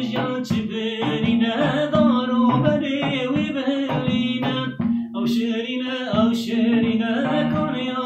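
A man singing a Kurdish folk song while accompanying himself on a plucked bağlama (long-necked saz), the voice and strings playing together throughout.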